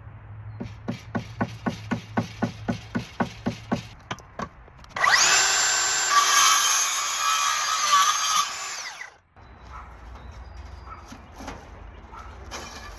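A run of sharp, evenly spaced knocks, about four a second, then a power tool starts abruptly, runs loud and steady for about four seconds and cuts off, followed by a few faint clicks.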